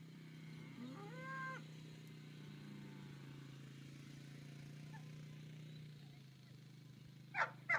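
Two short, loud dog barks in quick succession near the end, over a steady low hum. About a second in there is a brief, rising animal call.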